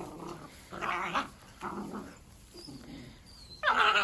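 Dalmatian puppies yapping and whining in short bursts during play, about four times, the loudest near the end.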